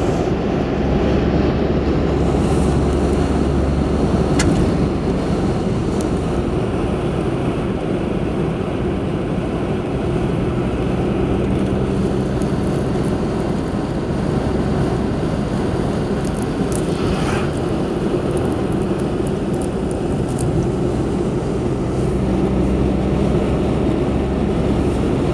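Steady road and engine noise inside a car's cabin while driving on a highway, a constant low rumble with no let-up.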